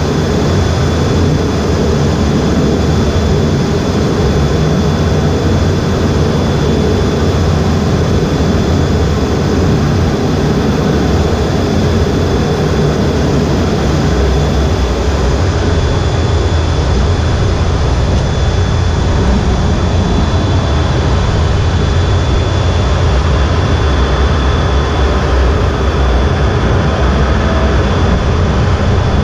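Jet engines running steadily, heard from inside a fighter cockpit: a deep, even rumble with a thin steady high whine over it.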